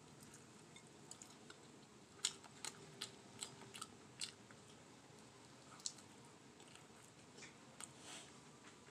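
Close-miked mouth sounds of a person chewing a meatball: soft, wet clicks and smacks. They come in a run between about two and four seconds in, then a few more near the end.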